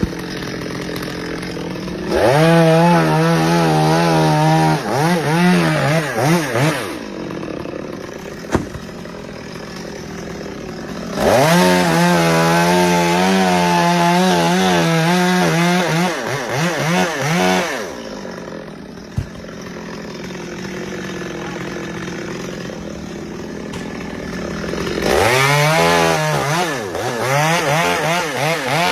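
Two-stroke chainsaw revving to full throttle three times, for several seconds each, its pitch wavering under load, and dropping back to a lower idle in between.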